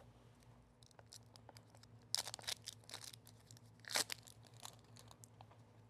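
Packaging being torn open and crinkled by hand, most likely the wrapping on a stack of game cards, with one louder rip about two seconds in and another about four seconds in, and light rustling and clicks between them.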